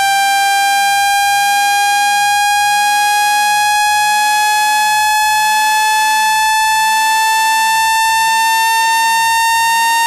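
Synthesized buzzing tone for ejecting water from a phone's charging port, meant to vibrate water out when played through the phone's speaker. It is loud and unbroken, one pitch rich in overtones, gliding very slowly upward.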